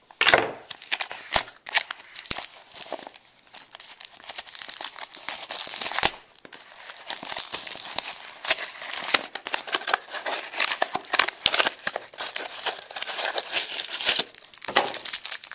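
A trading-card pack wrapper being crinkled and torn open by hand. There are scattered sharp crackles at first, then a dense, busy run of crinkling from about six seconds in.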